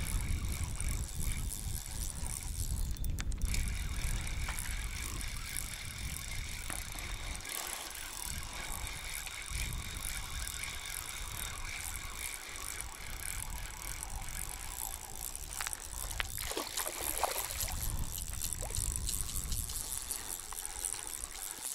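Spinning reel being cranked to bring in a small hooked asp, with wind rumbling on the microphone; the fish splashes at the surface near the end.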